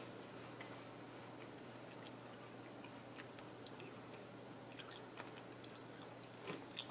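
Faint chewing of a pecan praline, with soft scattered clicks and crunches.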